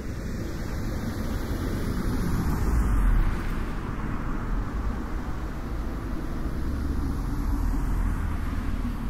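Low rumble of a vehicle passing on a road, swelling to its loudest about three seconds in, then a gentler swell near the end as another approaches.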